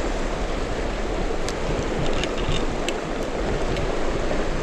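Shallow, stony mountain river flowing steadily with a constant rush of water, and a few light clicks.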